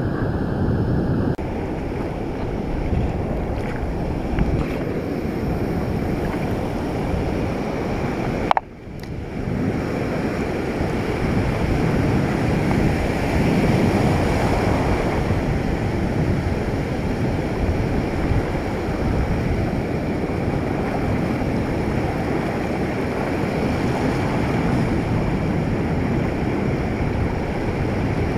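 Ocean surf breaking and washing up a sandy beach, with wind on the microphone: a steady rushing noise. About eight and a half seconds in there is a sharp click and a brief dip in loudness.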